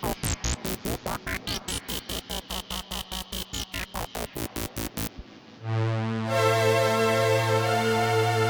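Akai AX60 analog synthesizer with added reverb and delay, playing a fast pulsing repeated sound at about six pulses a second with sweeping glides through it. The pulses stop about five seconds in, and a sustained low droning note swells in and brightens.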